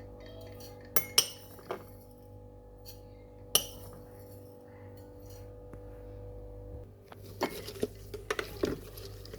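Kitchenware clinking and knocking as tea is prepared: a few sharp separate clinks in the first few seconds, then a quicker run of clinks and knocks near the end, over a steady low hum.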